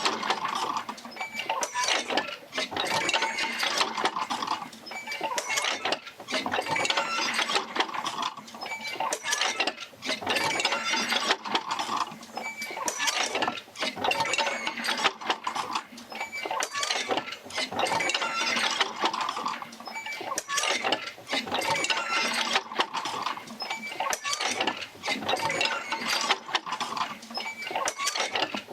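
Oil-field field wheel rocking back and forth as it drives its jerker lines, its joints and linkages clanking and squeaking. The sound swells and eases in a steady cycle about every two seconds.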